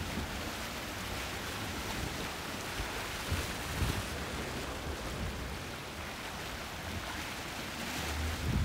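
Choppy sea and wind: a steady wash of rough water, with wind buffeting the microphone in short low rumbles about three and a half seconds in and again near the end.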